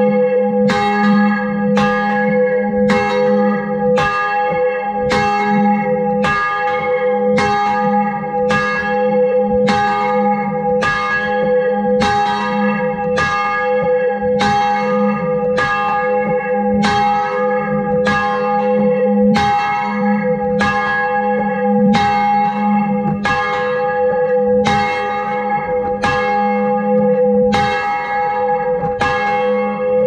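A ring of six church bells, tenor 9 cwt in A♭, rung full circle on wheels and heard close up inside the bell chamber. Strikes follow one another at an even, steady pace, each ringing on into the next so the tones overlap.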